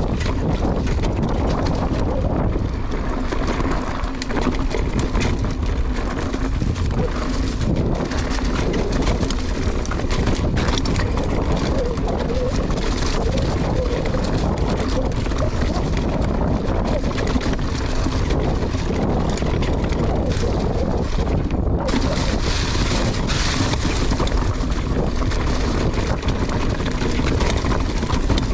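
Mountain bike descending a leaf-covered singletrack: wind buffeting the microphone over the steady rush of tyres rolling through leaves and the bike rattling and knocking over rough ground.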